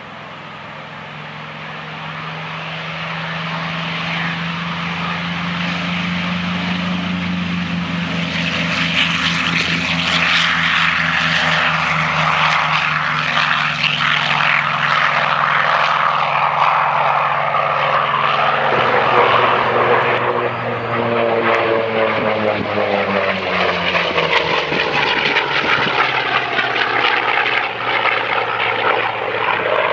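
Corsair fighter's propeller engine running at takeoff power through its takeoff run. The sound grows steadily louder over the first ten seconds as the plane approaches. From about twenty seconds in the engine tone shifts and bends in pitch as the plane passes, lifts off and climbs away.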